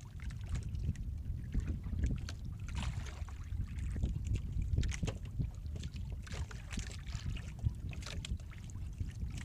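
Steady low rumble of wind and sea aboard a small wooden fishing boat, with scattered knocks and clicks from fishing gear being handled on the deck.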